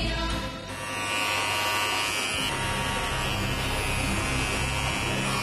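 Electric hair clippers buzzing steadily, starting just under a second in.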